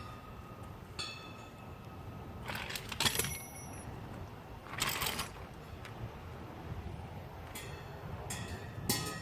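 Metal hardware being handled: a few light metallic clinks that ring briefly, with two short bursts of scraping noise between them, while a metal railing bracket is fitted with self-drilling screws.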